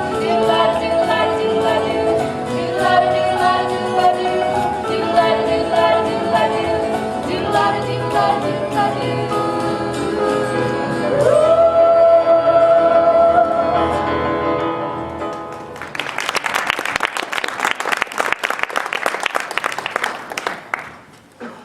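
Singers performing a stage-musical song with accompaniment, ending on a long held note. The song gives way to audience applause for the last few seconds.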